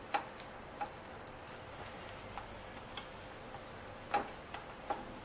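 A handful of light clicks and taps of a steel spatula against a nonstick frying pan as buttered pav halves are pressed and flipped, the loudest a little after four seconds, over a faint sizzle of butter.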